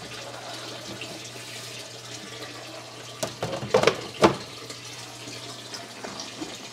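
Steady trickle and splash of aquarium water running, over a low steady hum. A few sharp plastic clunks come about three to four seconds in as the black plastic hood panels of the aquarium light are closed and set down on the tank.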